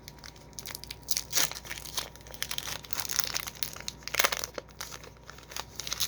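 Foil wrapper of a Pokémon trading-card booster pack crinkling in the hands as it is opened, in irregular rustles and crackles, louder about a second in and again past the middle.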